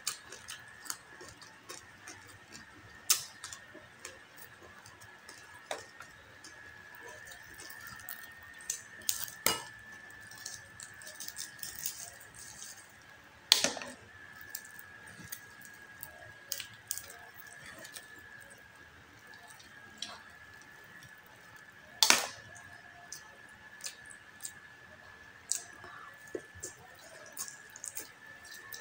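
Close-miked eating of crispy pata (deep-fried pork knuckle) with rice by hand: wet chewing and mouth clicks throughout. A few loud sharp cracks stand out, the loudest about halfway through and again about three-quarters through, as the crackling skin and meat are torn and bitten. A faint steady high whine runs underneath.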